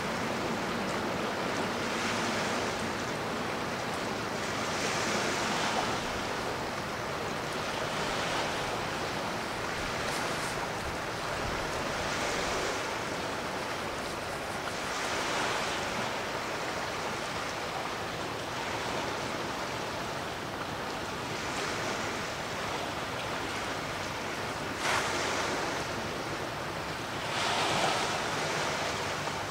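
Small sea waves washing in, a soft surge every two to three seconds.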